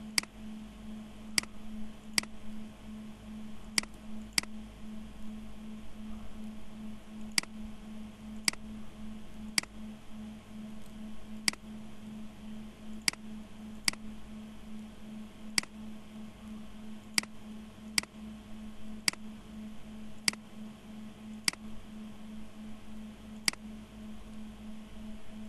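Computer mouse clicks: single sharp clicks every second or two, irregularly spaced, over a steady low hum.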